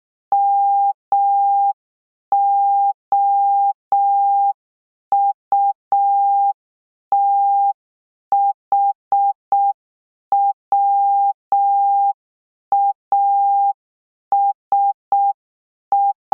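Morse code practice tone, a single steady beep keyed in short dits and long dahs at a slow, even speed, spelling out M-O-U-T-H-W-A-S and the start of H of the practice word "mouthwash".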